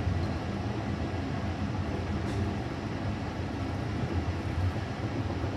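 Passenger train running along the track, a steady low rumble.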